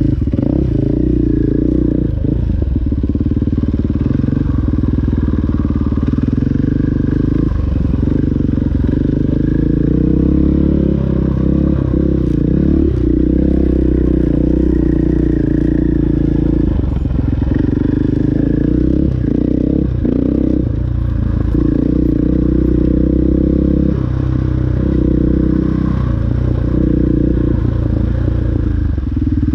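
KTM 500 enduro dirt bike's single-cylinder four-stroke engine running under load on a rough trail. The throttle is rolled off and back on several times, so the engine note dips briefly and picks up again.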